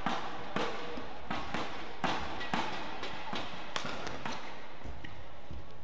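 Badminton rackets striking the shuttlecock in a fast rally, a sharp crack about every half second, ending about four seconds in; steady hall noise underneath.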